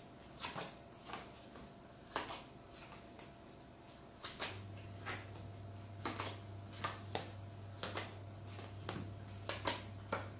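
Tarot cards being drawn from the deck and laid down on a table, a string of short, irregular card flicks and taps.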